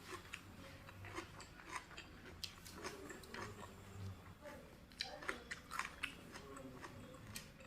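Close-up chewing and crunching of raw vegetables: a run of short, crisp crunches, with a cluster of louder bites about five seconds in.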